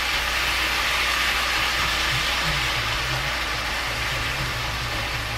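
Ground beef sizzling steadily as it browns in a frying pan on the stove.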